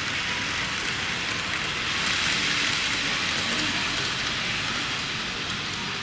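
N gauge model train running along the layout track: a steady rattling hiss of wheels and motor that swells about two seconds in as it passes, then eases off as it runs away around the curve.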